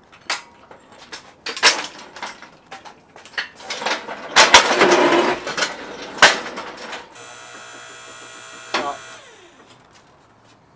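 Metal clanking and knocking of an engine hoist's chain and a heavy engine on a wheeled dolly being shifted on concrete, busiest about four to five seconds in. Then a steady buzzing hum runs for about two seconds, with one more knock just before it stops.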